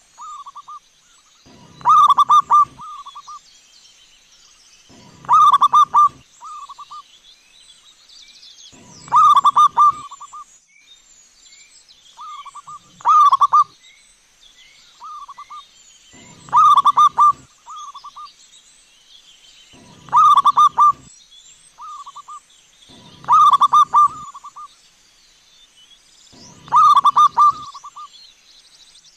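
Zebra dove cooing: a rolling burst of quick coo notes followed by one or two shorter trailing coos, the phrase repeated about every three and a half seconds, eight times. Faint high chirps of other small birds run behind it.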